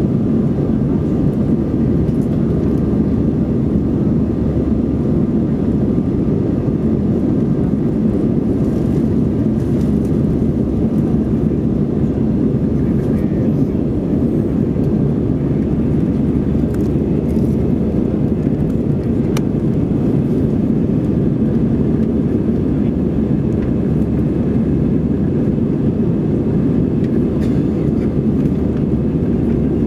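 Steady cabin noise of an Airbus A320 in flight: a loud, even low rumble of the jet engines and airflow past the fuselage, with a faint steady hum above it, while the airliner climbs through cloud after takeoff.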